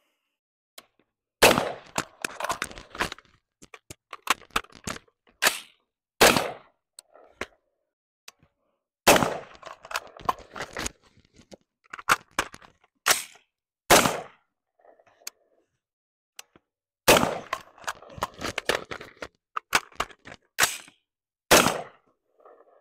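Semi-automatic AR-15-style rifle firing strings of quick shots in three clusters with short pauses between, during a one-reload drill. Fainter clicks and clatter of the rifle being handled fall between the shots.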